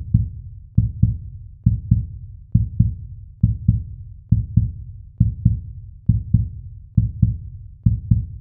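Heartbeat sound effect: pairs of deep thumps, lub-dub, repeating steadily a little faster than once a second.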